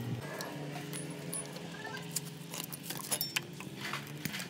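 Light, irregular metallic clicks and clinks of pliers and hand tools working at hose clamps and connectors on an engine being dismantled, over a faint steady hum.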